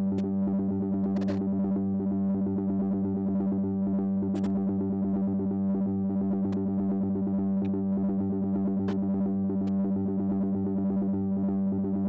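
A synthesizer holding one steady low droning note, unchanged in pitch and level, with a slight fluttering texture in its upper tones. A few short sharp clicks sound over it at irregular moments.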